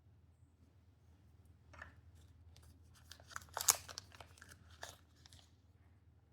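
Packaging being handled during an unboxing: a run of crinkling, crackling and tearing sounds with sharp clicks, loudest about halfway through, after a quiet start.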